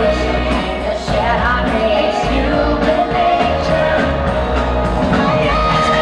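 Live pop-rock concert music played loud through a stadium sound system and recorded from the crowd: a woman singing over a band with a heavy, steady beat.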